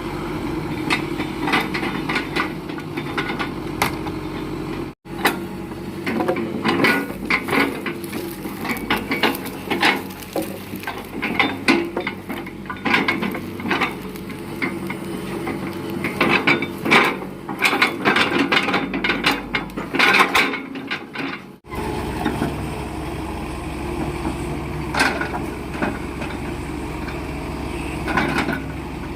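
Heavy machinery's engine running, with frequent knocks and clatter of wood logs being handled. The sound changes abruptly twice.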